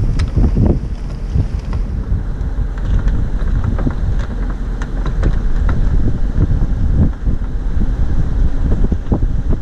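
Strong wind buffeting the microphone on a sailing yacht under way in rough weather: a loud, continuous low rumble with uneven gusty thumps.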